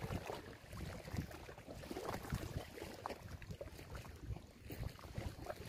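Wind gusting over the microphone, an uneven low rumble that rises and falls, with small waves lapping at the riverbank.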